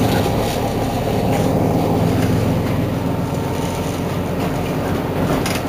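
Mercedes-Benz Citaro G C2 articulated bus idling at a standstill, its engine giving a steady low hum. A short sharp click sounds near the end.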